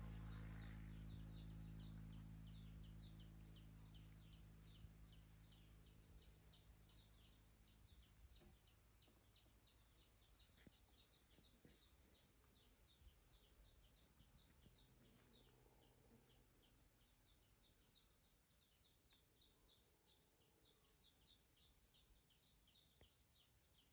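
Near silence with faint, evenly repeated high chirps, about three a second, from a small outdoor creature. A low hum fades out over the first several seconds.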